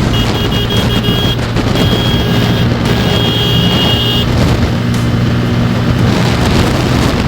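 Motorcycle engine running steadily at road speed, with wind and road noise over the microphone and a high thin tone that cuts in and out during the first few seconds.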